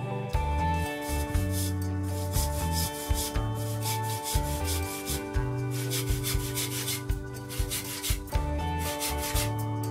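Bandsaw cutting relief cuts into an oak spoon blank, the cutting noise coming and going in short stretches as the blank is fed into the blade.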